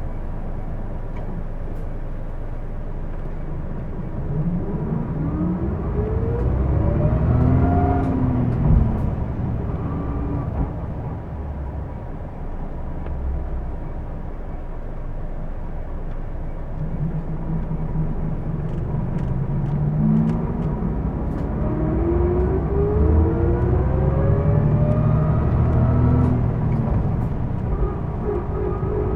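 Interior running sound of a Hino Blue Ribbon II city bus: the diesel drivetrain pulls through two accelerations, each with a whine that rises in pitch and then falls away as it eases off, over a steady thin high tone. This bus is known for an odd, abnormal running noise.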